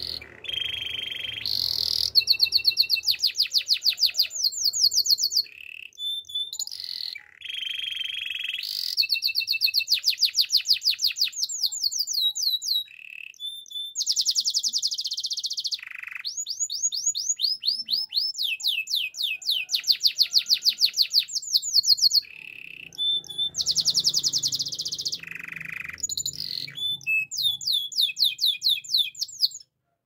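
Domestic canary singing a long, almost unbroken song: fast trills and rolls of quick repeated whistled notes, the tour changing every second or two with brief pauses, stopping just before the end.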